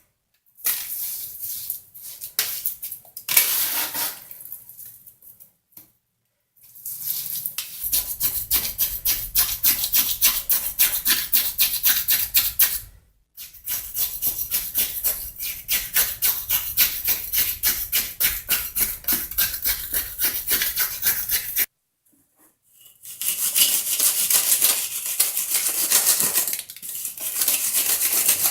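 Rhythmic scraping strokes of a hand tool, about two a second, harsh and high-pitched. They stop and restart abruptly a few times.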